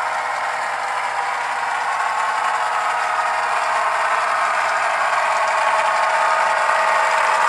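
Model Canadian Pacific diesel locomotive running toward the camera on a model railroad layout: a steady mechanical running and rattling of its drive and wheels on the track, slowly getting louder as it approaches.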